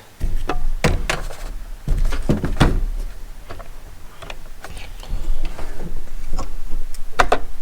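Handling noise on a tabletop: a series of clicks and knocks as power-tool battery packs are pushed aside and a scale is set down, over a low rumble of things being moved.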